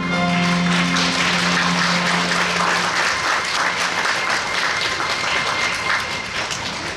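Audience applauding as the performance music finishes on a held chord that fades out about three seconds in; the clapping then dies away near the end.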